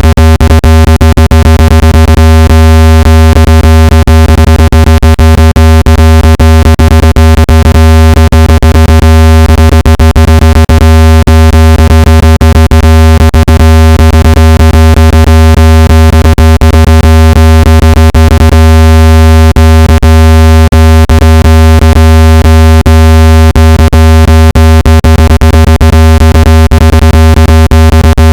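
Loud, steady, low-pitched synthetic tone with overtones, played to vibrate water and dust out of a phone speaker, with a crackle of clicks running through it.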